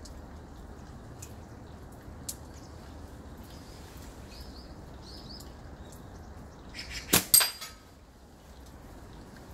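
A slingshot shot. About seven seconds in, the released rubber bands snap sharply, and a fraction of a second later comes a second, louder crack that rings briefly.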